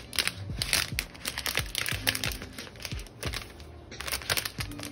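Translucent protective sheet crinkling and crackling as it is peeled back off an iPad Pro's screen, over soft background music with a low, steady beat.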